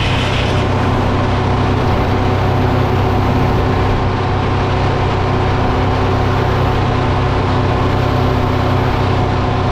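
A diesel engine running steadily at a constant speed, loud and unbroken.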